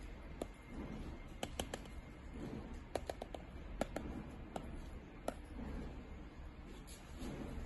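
An iPad stylus tip scribbling on the tablet's glass screen: scattered sharp ticks as the tip strikes and drags, several in quick clusters, over a low steady hum.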